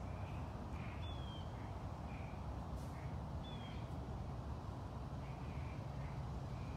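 Birds calling in the background: short repeated calls about twice a second, and two brief descending whistles about a second in and again a few seconds later, over a steady low rumble.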